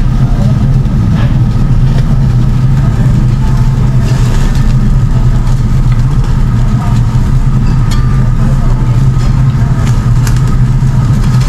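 Steady, loud low drone of a tabletop yakiniku grill's built-in smoke extraction fan running, with a few light clicks of metal tongs on the grill.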